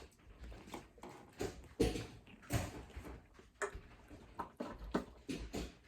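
Irregular taps, clicks and rustles of objects being handled close to the microphone, with a few louder knocks about two seconds in and again after two and a half seconds.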